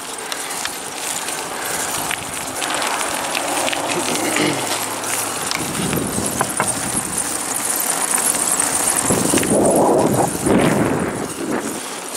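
Bicycle riding along an asphalt road: steady rolling noise with scattered rattles and clicks, growing louder for a while in the second half.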